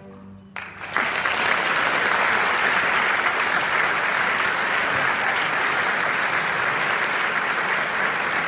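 The last chord of a string orchestra dies away, and about half a second in the audience breaks into applause that carries on steadily.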